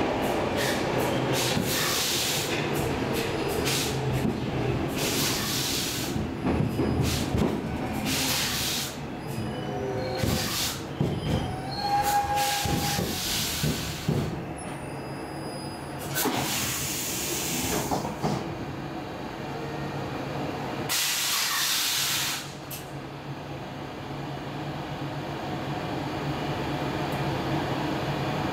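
Stockholm Metro C14 car, its traction motors disabled, rumbling into a station and coming to a stand, with repeated loud bursts of hissing air every few seconds and a brief squeal about twelve seconds in. In the last few seconds only a quieter steady hum remains as the train stands.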